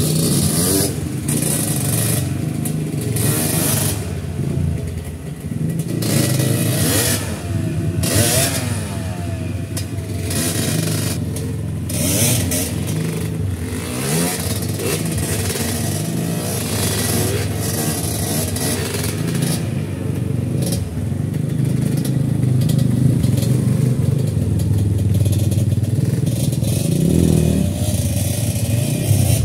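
Dirt bike engines revving unevenly in repeated rising and falling bursts as the bikes pick their way across a rocky stream bed, with scattered clattering over the top. The engines run a little louder in the last third.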